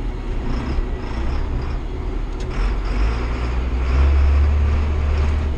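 John Deere 7800 tractor's diesel engine running with a steady low rumble that grows louder about three seconds in, with a faint knock about two and a half seconds in as it crosses rough frozen ground.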